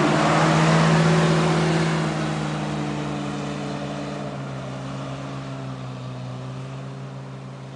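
Off-road 4x4 engine running as the vehicle churns through mud close by, with loud mud and tyre noise at first. It then pulls away up the trail, its engine note sinking slightly and steadily fading.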